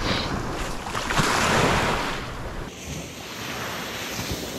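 Ocean surf washing up the beach, with wind on the microphone; a wave breaks and rushes in, loudest between one and two seconds in, and the sound drops away a little later.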